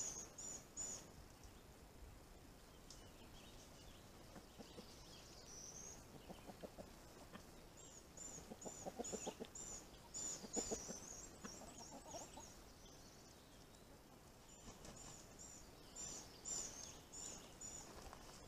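A flock of hens clucking softly, in scattered short clucks that cluster near the middle.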